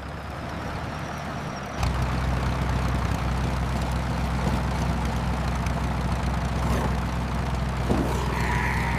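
Farm tractor engine running steadily with a low, even rumble that gets louder about two seconds in.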